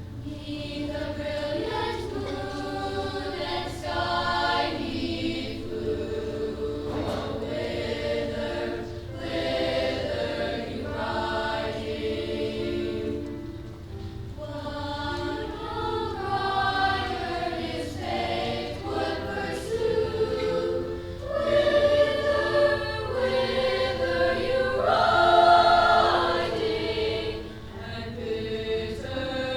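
Combined middle school choirs singing a choral arrangement of a traditional Czech folk song, rising to its loudest swells about three quarters of the way through, then falling away near the end.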